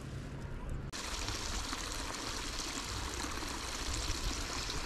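Steady rushing of flowing water, like a small stream, an even hiss that sets in abruptly about a second in.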